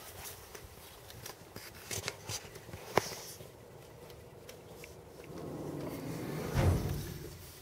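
Scattered small clicks and knocks, with a sharp click about three seconds in, then a low rumble that swells and peaks in a thump near the end.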